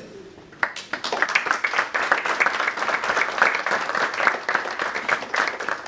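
A small seated audience applauding, the clapping starting abruptly about half a second in and easing a little near the end.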